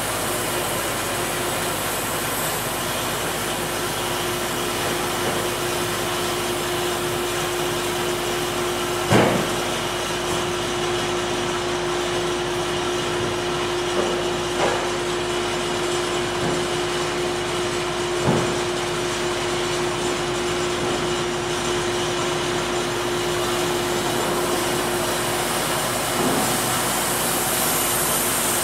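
Sawmill-shop machinery running steadily, a Wood-Mizer band sawmill and a board edger, with a steady hum that stops a few seconds before the end. Boards being handled give one sharp knock about nine seconds in and a few lighter knocks later.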